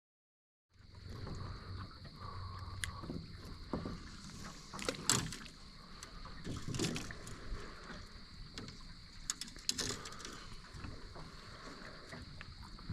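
Water moving around a fishing boat on a river, with several sharp knocks and splashes over a steady high-pitched whine.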